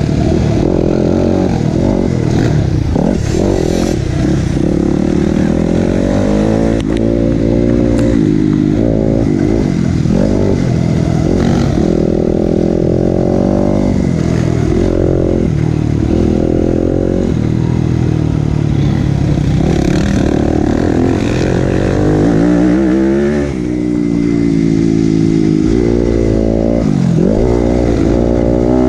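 Dirt bike engine revving hard and easing off over and over, its pitch rising and falling every few seconds as the throttle opens and closes, with a short drop in level about two-thirds of the way through.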